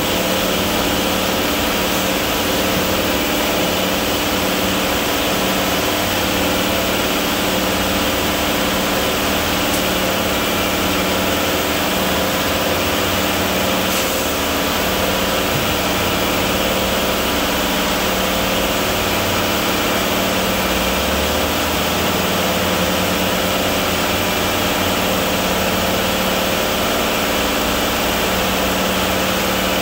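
Steady, unbroken machinery drone of a central-mix concrete plant: the tilted mixer drum turning as it pours wet concrete into a ready-mix truck's turning drum, with the truck's diesel engine running to drive its drum.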